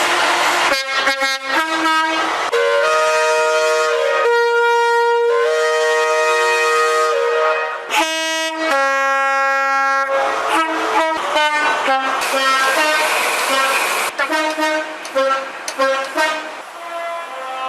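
British train air horns sounding a run of blasts: a few short toots, then a long held blast several seconds long, then further short toots and quick alternating high-low two-tone notes near the end.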